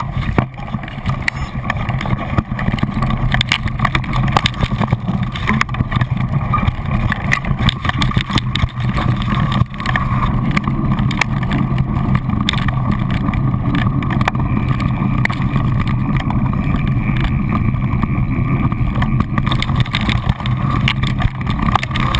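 Riding noise from a camera mounted on a mountain bike descending a dirt forest trail: steady wind rumble on the microphone, with many quick clicks and rattles from the bike jolting over rough ground.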